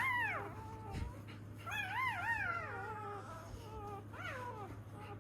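Newborn German Shepherd puppy whimpering in short, high, wavering cries: one at the start, a run of several about two seconds in, and a couple more near the end.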